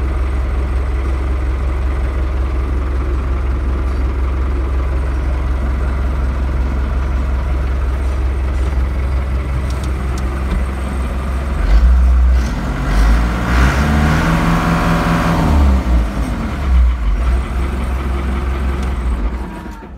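Fiat Fiatagri 80-90 DT tractor's diesel engine, heard from inside the cab. It runs steadily at low revs, then is revved up about twelve seconds in, held briefly and let fall back, and it is quieter near the very end.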